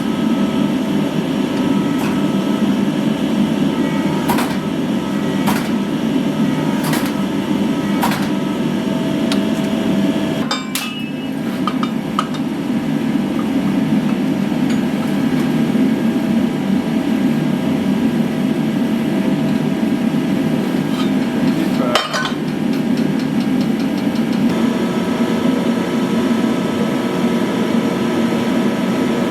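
Hammer blows on metal: four ringing strikes a little over a second apart in the first third, and one more strike about two-thirds through, over a steady workshop machine roar.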